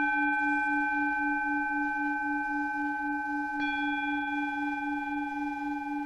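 Sound-healing meditation tones: a low hum pulsing about four times a second under sustained high ringing tones, with a fresh bell-like tone struck about three and a half seconds in, which then rings on.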